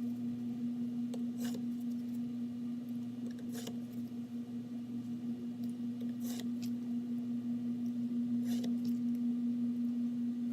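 Lines being drawn on a sheet of balsa wood: about five short scratching strokes a couple of seconds apart, over a steady low hum.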